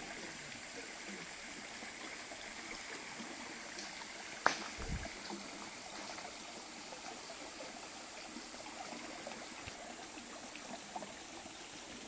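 Stream water flowing steadily. One sharp click stands out a little over four seconds in.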